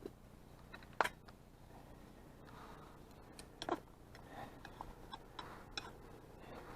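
Faint scattered clicks and knocks: a sharp one about a second in, a quick cluster near four seconds, then lighter ticks.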